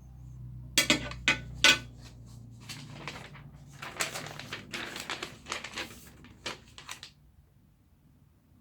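Hard chair-assembly parts being handled and knocked together: a run of clinks and clattering knocks, loudest in the first couple of seconds, ending about seven seconds in.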